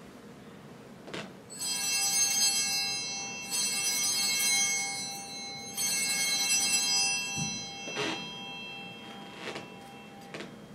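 Altar bells rung three times in quick succession at the elevation of the chalice during the consecration, each ring a cluster of bright, high tones that fades away. A few light knocks come before and after.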